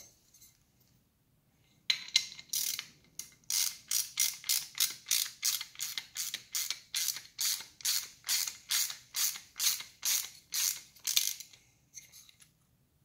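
A small fastener on a multi-fuel torpedo heater's nozzle bracket being tightened with a hand tool: a steady run of short clicking strokes, about three a second, starting about two seconds in and stopping about a second before the end.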